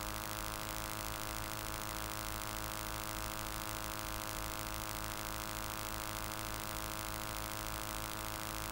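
Steady electrical hum and buzz, a stack of constant tones over a faint hiss, holding an even level without change.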